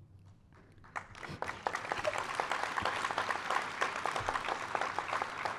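Audience applauding. It starts about a second in and quickly builds to a steady, dense clapping.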